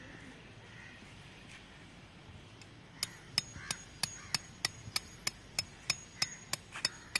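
A hammer drives a marking peg into the ground with a steady run of sharp taps, about three a second, starting about three seconds in.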